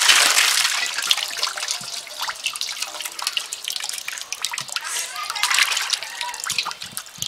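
Water gushing from a hand pump's spout and splashing on the ground, loudest in the first second or so, then lighter splashing and sloshing of water in a steel basin stirred by hand.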